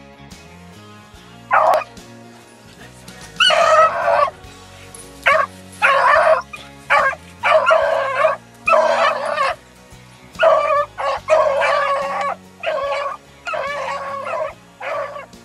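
Beagles baying while running a rabbit: a string of about a dozen drawn-out calls, each under a second long, over background music.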